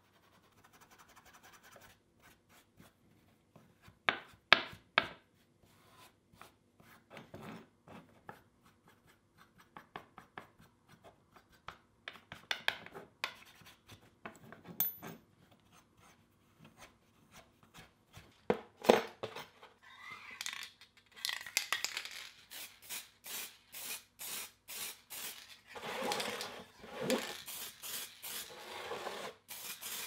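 Small forged iron belt buckle being handled and fitted together on a wooden workbench: scattered metal clicks and taps, with a few sharper knocks about four seconds in and again near nineteen seconds. From about twenty seconds on, quick, even rubbing strokes, two to three a second.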